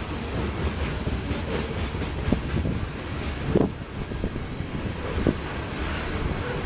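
Freight train of covered hopper cars rolling past close by: a steady rumble and clatter of steel wheels on the rails, with a few brief sharp squeals or knocks about two, three and a half and five seconds in.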